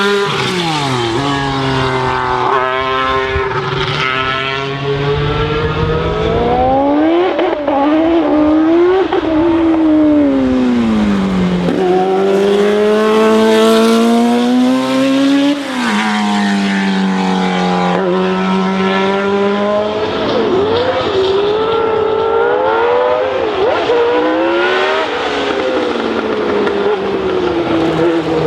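Historic Formula 1 racing car engines at high revs passing one after another. The pitch climbs under acceleration and drops away as each car goes by, sometimes with two cars heard at once.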